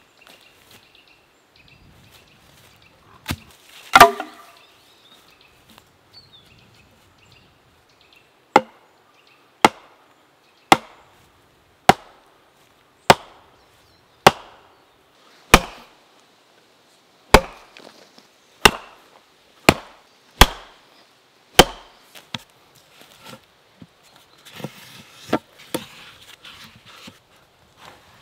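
An axe striking the top of a wooden stake, driving it into the ground: two blows around four seconds in, then a steady run of about a dozen sharp wooden knocks roughly one a second.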